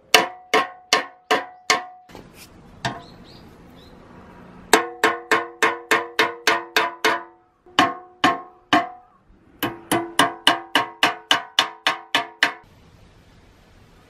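A hammer strikes the painted steel control panel of a Yanmar dozer shovel in quick runs of about four blows a second, and each blow leaves the sheet metal ringing with a clear, bell-like pitch. The blows come in three bursts with short pauses between them and stop near the end.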